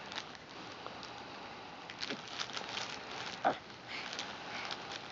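Crinkling and rustling of a baby's soft cloth crinkle book as small hands grab and pull at its pages, with one short louder sound about three and a half seconds in.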